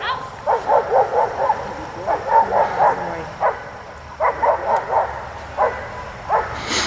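Boxer dog barking in quick runs of about five barks a second, in several bursts with short pauses between them, while it guards the protection helper at close range.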